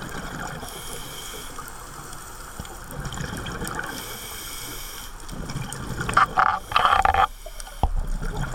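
Muffled underwater sound through a camera housing: scuba divers' exhaled bubbles gurgling, with a louder rush of bubbles about six seconds in and a single sharp knock near the end.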